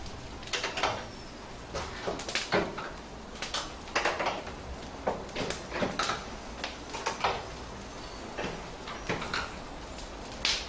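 Irregular knocks and clanks, some with a brief ringing tail, over a steady low background.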